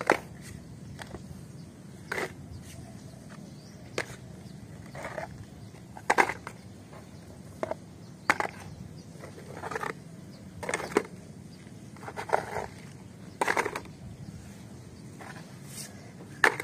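Muddy plastic toy vehicles being handled and set down one by one, giving irregular clicks, knocks and short scuffs of plastic on plastic every second or so, over a steady low hum.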